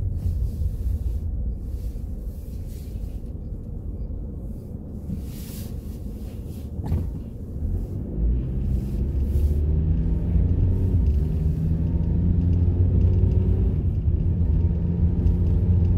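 Car engine and road rumble heard from inside the cabin. About halfway through, the engine note rises and grows louder as the car speeds up.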